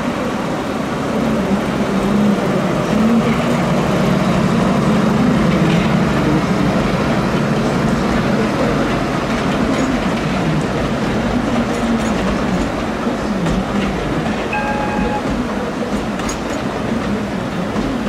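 Narrow-gauge forest railway train running: a steady rumble and rattle of the locomotive-hauled cars on the 762 mm track. A brief high tone sounds about fourteen and a half seconds in.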